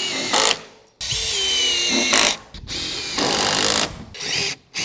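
Cordless drill driving screws into wood blocking, in several short runs with pauses between. The motor whine drops in pitch as each screw loads it.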